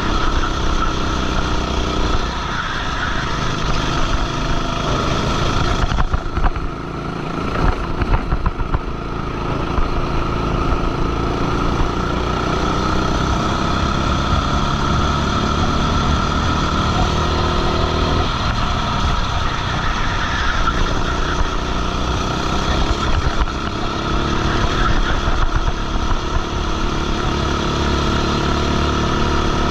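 Go-kart engine running hard under race load, heard close up, its note falling and rising as the driver comes off and back on the throttle through corners, with a brief lift about six seconds in.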